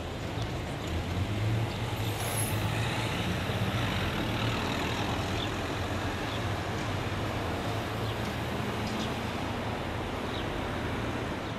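City street traffic: an articulated electric trolleybus moving off among passing cars and a van. The result is a steady mix of tyre and engine noise with a low hum.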